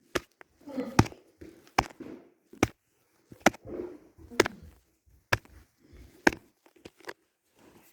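A series of sharp knocks, about one a second, with softer rustling between them.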